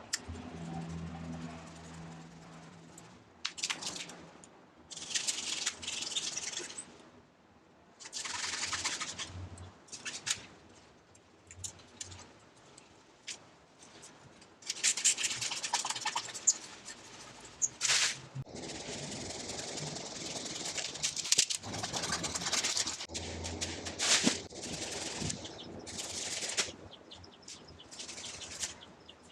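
Leafy kumquat branches rustling and scraping in irregular bursts as the tree is pruned by hand, with short quiet gaps between handlings.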